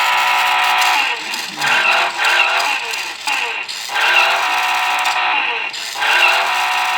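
Electronic engine sound effect of a 1990s Taiyo remote-control mini Suzuki toy car. A steady synthesized engine note gives way, about a second in, to repeated rising revs as the car is accelerated by remote control.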